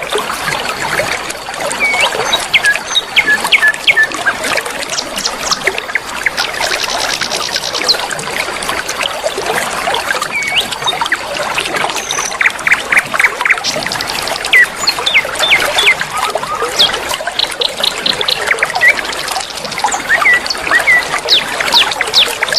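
Flowing river water running steadily, with songbirds chirping over it: short sharp whistles and several fast trills scattered throughout.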